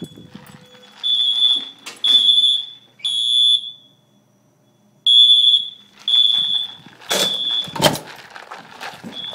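Edwards EST fire alarm horn sounding the high-pitched temporal-three evacuation pattern: three short blasts, a pause, then three more. A sharp thump lands right after the last blast.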